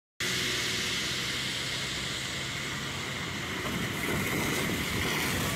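Traffic driving through a flooded road: a steady rush of tyres splashing and throwing up water, with engine noise that grows lower and heavier from about halfway through as a truck comes closer.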